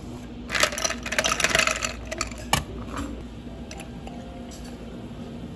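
Ice cubes clattering into a tall drinking glass: a dense run of clinks lasting about a second and a half, then one sharp clink.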